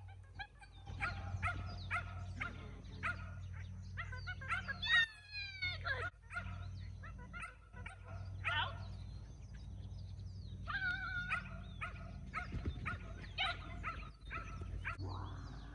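A dog barking and yipping over and over in short, high calls, with one longer sliding call about five seconds in. A steady low hum runs underneath.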